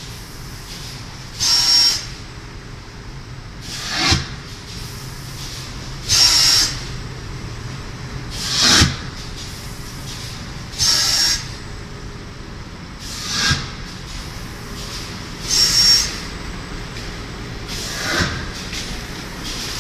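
Paper pulp egg tray moulding machine running with a steady hum, under loud hisses of air about every two and a half seconds. They alternate between a hiss that swells into a sharp clack and a short flat blast with a high whistle in it.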